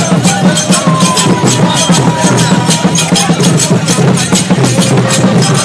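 Vodou ceremonial drumming and percussion, played live, loud and fast, with a steady beat of about five or six strokes a second.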